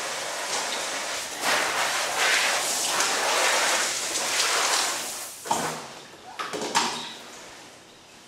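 Water spraying from a hand-held shower, a steady hiss that stops about five and a half seconds in, followed by a few knocks and clatters.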